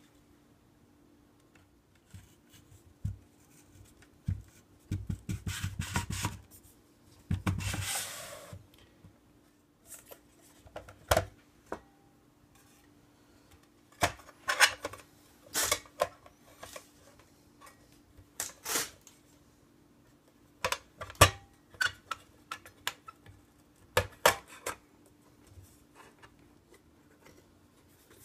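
Plastic case parts and circuit board of a handheld elevator service tool being handled and fitted together on a rubbery work mat: scattered clicks and knocks, with a stretch of rubbing and scraping about five to eight seconds in. A faint steady hum runs underneath.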